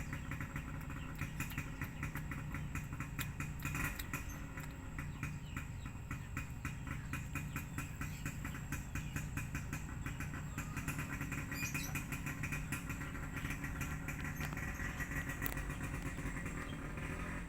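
A small engine running steadily at idle, with a fast, even ticking over a low rumble.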